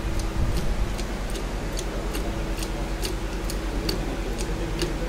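Hand-operated hydraulic pressure test pump being worked, its lever strokes giving regular light clicks about two a second while water is pumped into a blanked cylinder head to raise test pressure. A steady machinery hum runs underneath.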